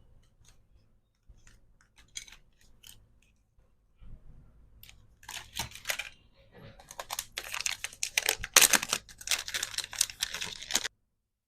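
Hair-clip packaging being handled: light clicks and taps at first, then plastic packaging crinkling and rustling from about five seconds in, growing denser before it cuts off abruptly near the end.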